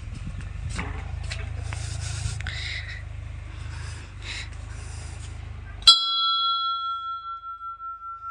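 A small temple bell struck once, about six seconds in, ringing on with one clear steady tone while its higher overtones fade within a second or two. Before the strike, a low rumble with some rustling and clicks.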